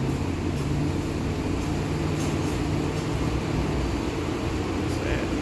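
Steady low hum and rumble of a car sitting at idle. A low droning tone in it fades out about four seconds in.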